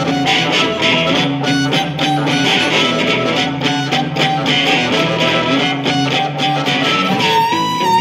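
Live blues played on harmonica and electric guitar: the guitar keeps a rhythmic accompaniment while the harmonica plays into a microphone, holding a long wavering note near the end.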